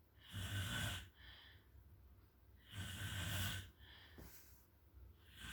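A sleeping person snoring: a low, rattling snore about every two and a half seconds, each followed by a shorter, softer breath.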